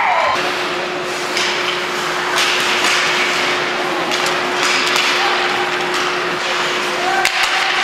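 Ice hockey play in a rink: sharp knocks of sticks and puck against ice and boards, with skate scrapes and crowd noise. A faint steady hum runs under it and stops near the end.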